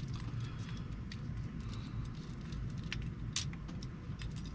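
Small metal clicks and ticks from lock cylinder parts being handled and the cylinder cap being screwed back on, a few sharper clicks standing out, over a steady low hum.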